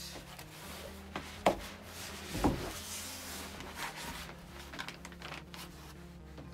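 Plastic bag and cardboard box rustling and crinkling as a plastic-wrapped guitar multi-effects unit is lifted out of its box, with two knocks about a second apart in the first half, the second the loudest.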